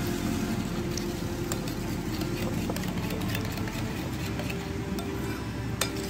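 A metal spoon stirring yogurt in a ceramic plate, with scattered light clinks of the spoon against the plate, over a steady low hum.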